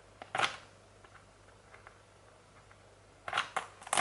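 Scissors snipping into plastic packaging: one short cut shortly after the start, then a quick run of snips and crinkles near the end.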